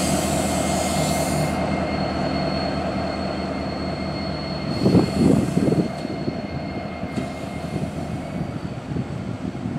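Norfolk Southern SD70ACe diesel-electric locomotive, with its EMD 710 sixteen-cylinder two-stroke engine, running as it pulls away, its steady drone slowly fading. A thin high whine stops about halfway, and a few low thumps come about five seconds in.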